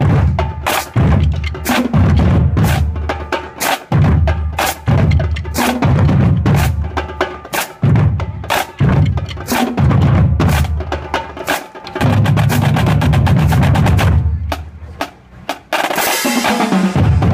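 Marching drumline playing: deep bass-drum booms about once a second under fast, dense snare strokes and rolls, with a loud crash-like wash near the end.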